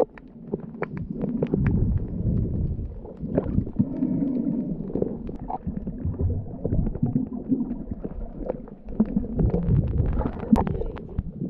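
Muffled underwater rumbling and sloshing from a camera held under the water while snorkelling, with many sharp clicks scattered through it.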